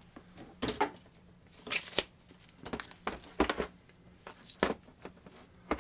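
Irregular clicks, taps and rattles of a rotary tool's flexible shaft attachment being handled and twisted to seat its square inner shaft into the tool's end.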